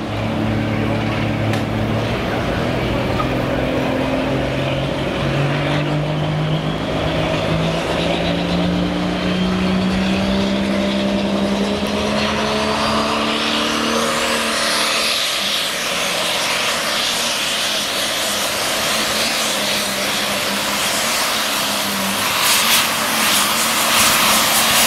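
Turbocharged diesel engine of an International Harvester pulling tractor revving up slowly under load, its pitch and a high whine climbing steadily for about fourteen seconds. It then runs flat out as the tractor pulls the weight sled down the track, the sound turning into a dense, noisy roar.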